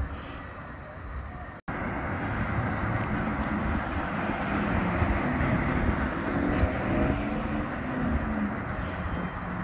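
Outdoor street ambience of road traffic passing, with a brief sharp dropout at an edit about one and a half seconds in.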